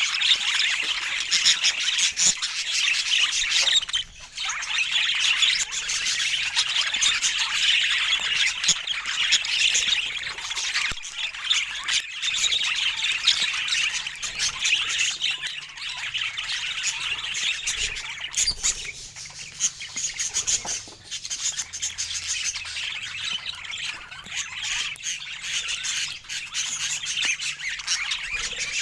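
Budgerigars chattering and squawking in a dense, unbroken stream of quick, high calls, thinning a little in the second half.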